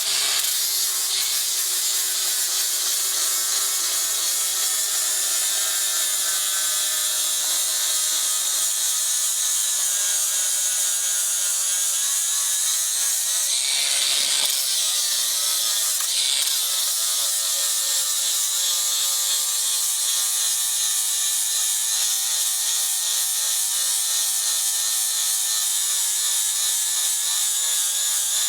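Angle grinder running against steel, cleaning up the tops of jack nuts: a steady high whine and grinding hiss that starts abruptly, with a brief harsher surge about halfway through.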